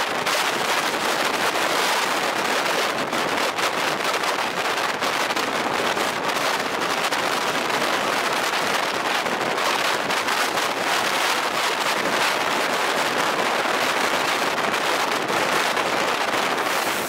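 A train of passenger coaches rolling past close by: a steady rushing clatter of wheels on the rails.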